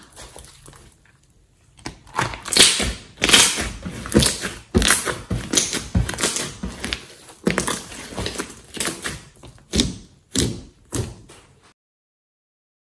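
Hands squeezing and pressing a large mass of green slime, making a quick, irregular run of sharp pops and squelches. The sounds stop short about a second before the end.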